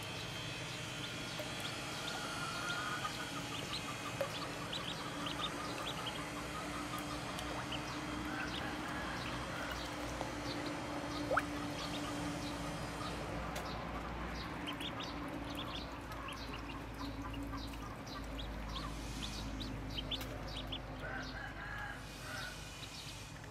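A brood of Muscovy ducklings peeping constantly, many short, high chirps overlapping, as they swim in a tub of water.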